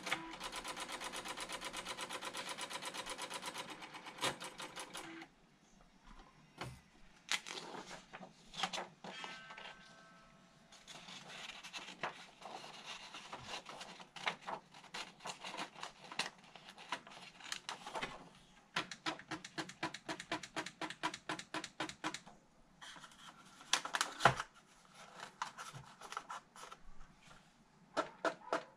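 Panasonic Penwriter electronic typewriter-plotter: a steady motor buzz for about five seconds, then a run of mechanical clicks and short whirs as paper is fed into it, including an evenly paced ticking of about four clicks a second.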